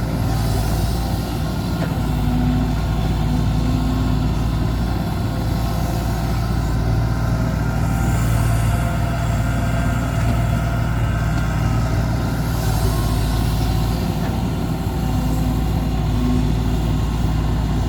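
Heavy diesel engine of a truck or excavator running steadily at a constant speed, with a low, even hum.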